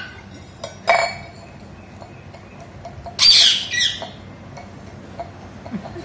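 Rose-ringed parakeet giving two loud, harsh squawks in quick succession, each sliding steeply down in pitch, a little past the middle. About a second in, a steel tumbler clinks once on the tiled floor.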